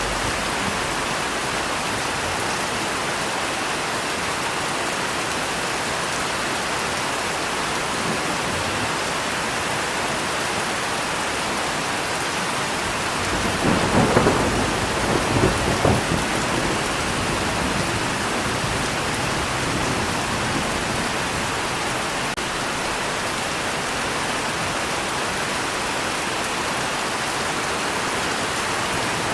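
Steady heavy rain with a crackling peal of thunder about halfway through, lasting some three seconds.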